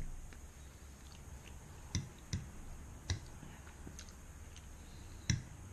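A person eating spaghetti carbonara, with quiet wet mouth clicks and smacks while chewing. Four sharper clicks stand out, spread through the few seconds.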